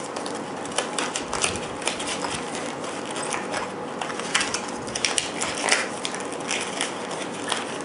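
Small medication packets crinkling and the kit's fabric pouch rustling as hands slide the packets back into its elastic loops: irregular crinkles and soft clicks.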